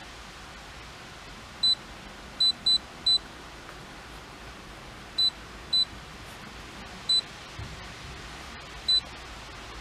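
Launch CReader VII+ OBD2 scan tool beeping at each button press as its menu is scrolled: eight short, high, single-pitch beeps at uneven intervals, over a faint steady background hiss.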